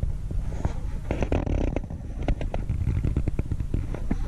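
Handling noise from a camera held close to a wheel: an uneven low rumble with scattered clicks and rustles.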